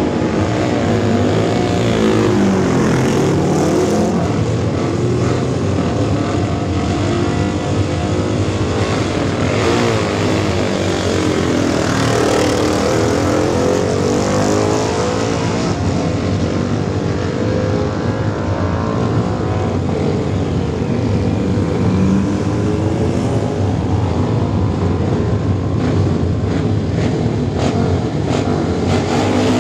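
Several classic racing motorcycle engines running and revving together on a start grid, their pitches rising and falling over one another, as the bikes are sent away from the line in turn.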